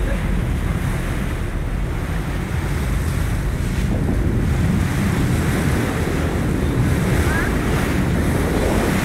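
Steady wind buffeting the microphone over the wash of the sea along a moving sportfishing boat, with a low rumble underneath.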